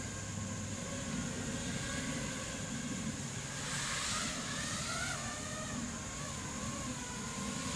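5-inch FPV quadcopter with iFlight Xing-E brushless motors and Nazgul 5140 props whining in flight. The pitch climbs and wobbles for a couple of seconds in the middle as the throttle changes, then settles lower.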